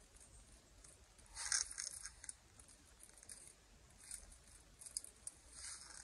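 Hand socket ratchet clicking in short runs, about a second and a half in and again near the end, with a few single clicks between, as it works the bolts of a transmission pan.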